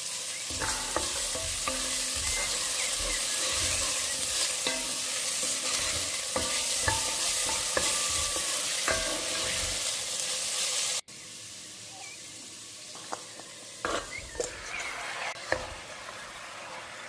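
Food sizzling as it fries in a pan, with a utensil stirring and scraping through it. About eleven seconds in the sizzle cuts abruptly to a quieter level, and a few knocks and scrapes of the utensil follow.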